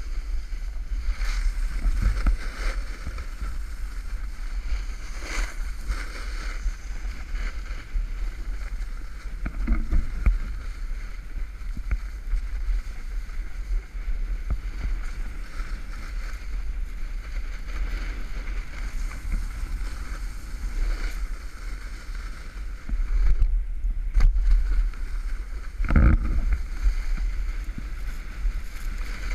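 Wind rushing over an action camera's microphone while riding fast down a groomed ski run, with the rider's edges scraping over packed snow. A few sharp knocks from bumps, the hardest about 26 seconds in.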